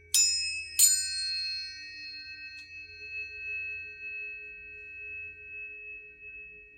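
Planetary tuning forks struck twice in quick succession, the second strike under a second after the first. Their high, pure tones ring on steadily and slowly fade.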